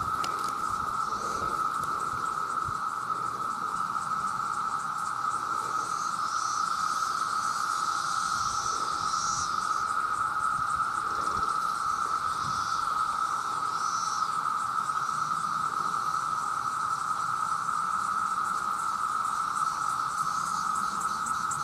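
A dense chorus of cicadas: a steady, unbroken drone, with fainter higher buzzes swelling and fading over it.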